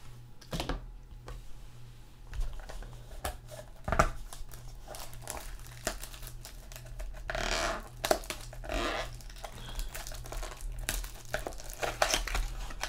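Hands opening a sealed trading-card mini box: plastic wrap crinkling and tearing, with scattered taps and clicks of cardboard and card holders being handled, busiest about seven to nine seconds in.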